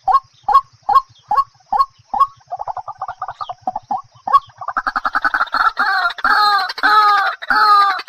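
Fowl clucking repeatedly in short calls about two a second, breaking into a fast stuttering run of calls in the middle. The calls grow louder and fuller from about five seconds in.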